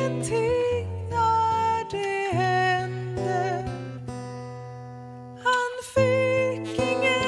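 A slow song: acoustic guitar accompanying a woman singing. About four seconds in, a held chord fades out before the next phrase comes in.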